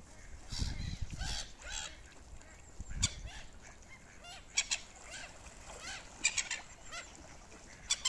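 Gulls and mallard ducks calling around a feeding spot: many short, harsh calls scattered through, the loudest about three seconds in and a cluster of calls around six seconds in.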